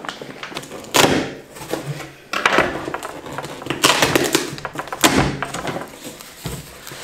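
Packaging of a new cookware set being opened and handled: a series of rustles, scrapes and knocks, loudest about a second in and again around the fourth and fifth seconds.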